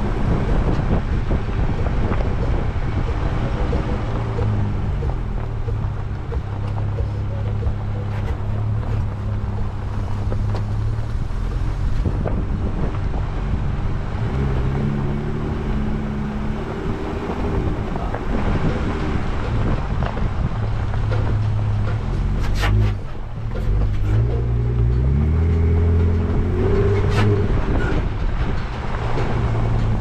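Engine of a four-wheel-drive off-road vehicle running as it drives a rough dirt trail, its pitch rising and falling several times with the throttle over a steady rumble of tyres and road noise. Two sharp knocks, about two-thirds of the way through and again near the end.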